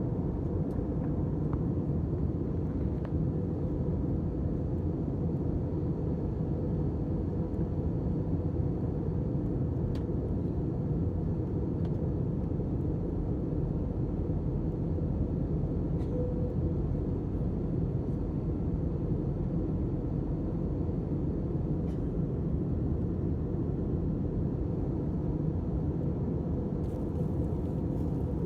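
Steady low rumble of a jet airliner, unchanging in pitch and level, with a few faint ticks.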